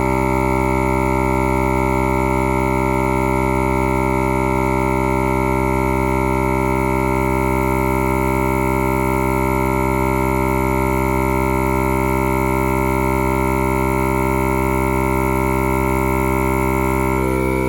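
Air compressor, repaired with JB Weld, running steadily with an even, unchanging hum while it pumps air into a leaking flat tire.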